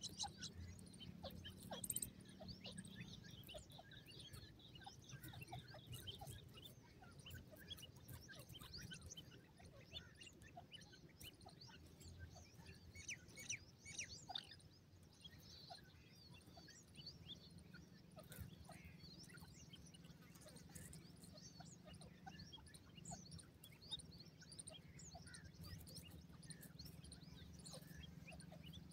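Francolin chicks peeping: faint, scattered short high chirps that keep coming throughout, over a low steady rumble.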